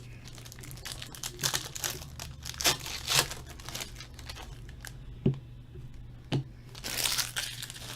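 Trading-card packaging being handled and opened: irregular plastic and foil crinkling and tearing, with a few sharp clicks.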